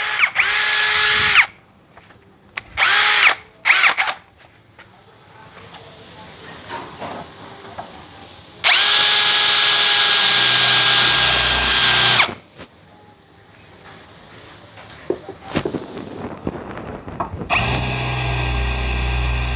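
Yasuka YID318 cordless brushless impact drill in plain drilling mode at speed 2, boring through 4 mm steel plate with a 7 mm metal bit. A short run and two brief trigger blips at the start, then a steady motor whine with the cutting noise for about three and a half seconds in the middle, and again from near the end.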